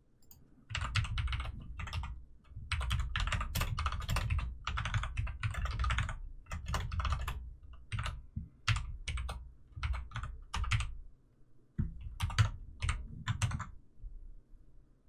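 Typing on a computer keyboard: quick runs of keystrokes with short pauses between words, stopping shortly before the end.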